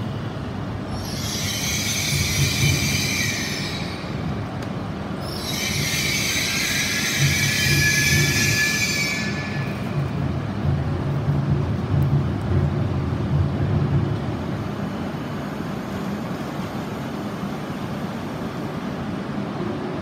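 E6-series Komachi Shinkansen pulling slowly into the platform and braking to a stop, with a high squeal twice (about a second in and again from about five to nine seconds) over the low rumble of the train. The rumble fades near the end to the steady hum of the standing train.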